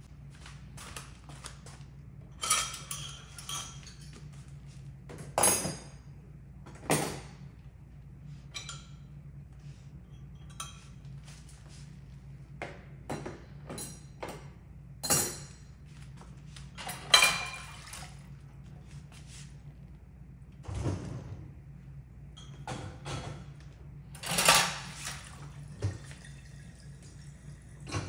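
Dishes and cutlery knocking and clinking irregularly as they are handled and loaded into a dishwasher, a few of the clatters louder with a short ring. A steady low hum runs underneath.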